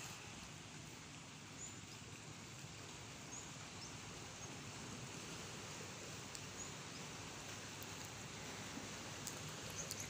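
Steady wash of small sea waves lapping at the shore and seawall, a soft even hiss with a few faint high chirps through it.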